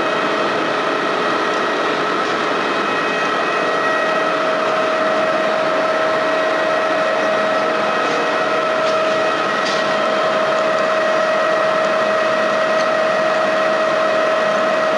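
Engine lathe running under power feed during a single-point threading pass, the carriage driven along by the lead screw as the tool cuts a 13-threads-per-inch thread on a half-inch steel shaft. A steady whine over an even mechanical running noise, unchanging throughout.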